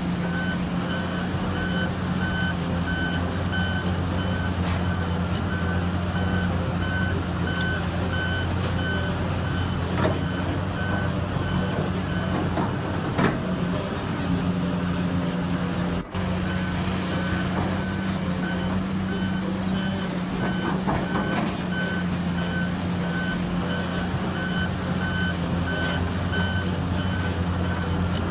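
Backup alarm on heavy construction machinery beeping in an even, regular pattern over a diesel engine running steadily. The beeping stops for a few seconds just past the middle, then starts again.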